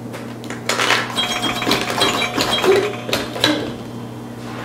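Hard plastic clicking and clattering from the Pop the Pig toy and its plastic hamburger pieces: a burger pushed into the pig's mouth and more burgers handled on a glass tabletop. A quick run of clicks starts about a second in and dies away near the end.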